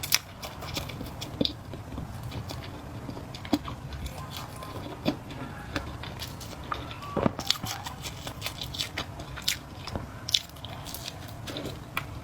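Close-miked chewing of spicy flat noodles, with many short, irregular mouth clicks.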